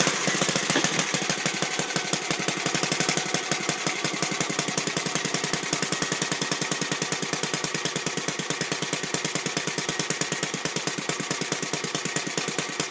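Home-built Rupnow vertical single-cylinder gasoline model engine running steadily at about 1100 RPM, a rapid even popping of roughly nine firings a second, while its carburetor is being adjusted.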